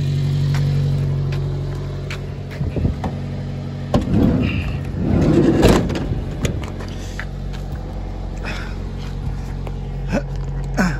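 Subaru Sambar's 660 cc four-cylinder engine idling steadily, with clicks, clunks and rattling from the doors and seats being worked by hand, loudest about four and five to six seconds in.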